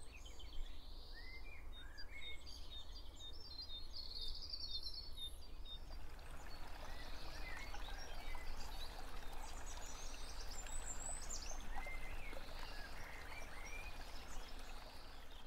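Several birds chirping and calling in quick, varied phrases over a steady low rumble. About six seconds in, a steady rushing hiss rises beneath the birdsong.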